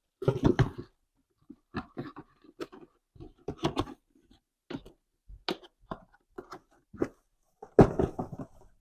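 Irregular rustling, crinkling and soft knocks of helmet packaging being handled, with a louder thump about eight seconds in.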